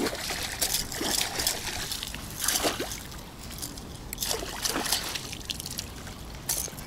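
A hooked pike thrashing at the surface of the lake while a landing net is pushed into the water under it: about five irregular splashes and sloshes of water.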